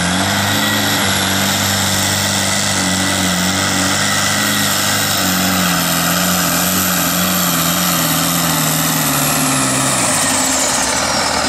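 Diesel engine of a modified farm pulling tractor running hard under full load as it drags a weight-transfer sled, with a high whine over the engine note. Near the end the engine note and the whine both fall in pitch as the revs drop.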